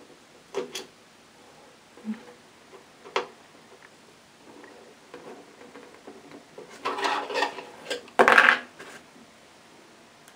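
Light clicks and scrapes of a brass label holder and a screw being handled against a stained wooden magazine file. About seven seconds in comes a louder rattling clatter of the brass plate on the wood as it is lifted off.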